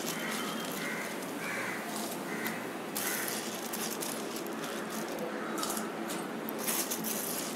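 Water boiling hard in a steel pot with basmati rice in it: a steady bubbling and hiss, with a few light ticks and rattles.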